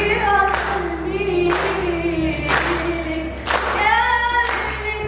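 Group of voices singing together, with a sharp beat about once a second.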